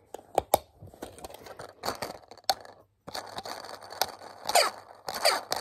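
Plastic Lego pieces being handled on a baseplate: a few sharp clicks at the start, then scraping and rubbing of plastic.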